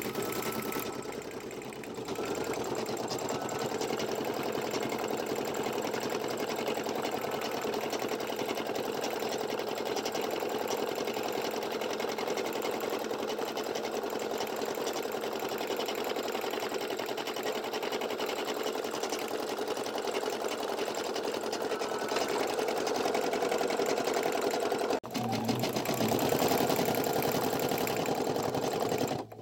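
Brother PE800 computerized embroidery machine stitching a design, its needle running in fast, steady strokes; the sound cuts out for an instant near the end.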